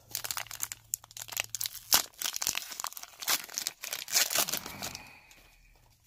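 Foil wrapper of an O-Pee-Chee Coast to Coast hockey card pack being torn open and crinkled in the hands, a dense crackling that dies down about five seconds in.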